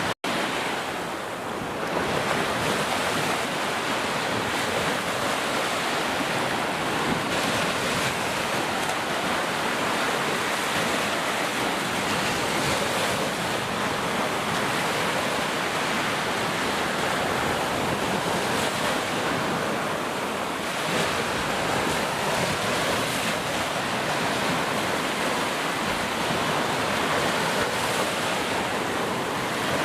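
Heavy rain falling steadily, an even rushing hiss with no let-up; it cuts out for an instant just after the start.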